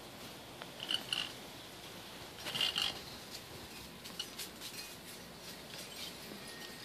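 Dogs playing: short high-pitched yips, two about a second in and a louder burst near three seconds, with scattered light clicks.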